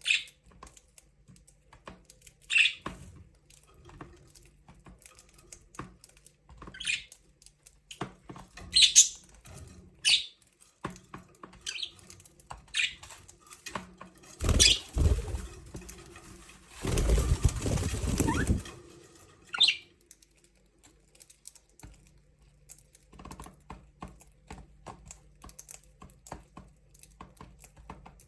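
Budgerigars chirping in short, high calls scattered through, amid many small clicks and taps, with a loud flurry of wing flapping about two-thirds of the way in that lasts around two seconds.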